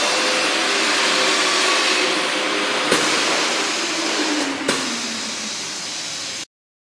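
An induction heater for aluminium motor housings runs with a loud, steady rushing noise. There are two sharp clicks from its control panel, and after the second a tone falls in pitch as the machine winds down. The sound cuts off suddenly near the end.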